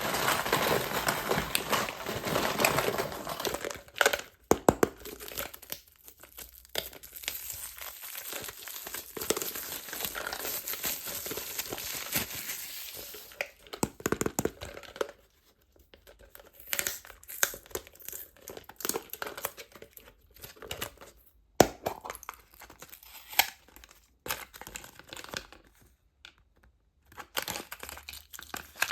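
Candy and toy packaging being crinkled and torn open by hand. There is a dense rustle for the first dozen seconds or so, then scattered crinkles and clicks with short pauses between them.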